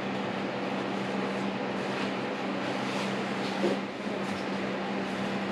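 Steady mechanical hum, like a fan or air-conditioning unit running, over an even rushing noise, with a brief soft sound about three and a half seconds in.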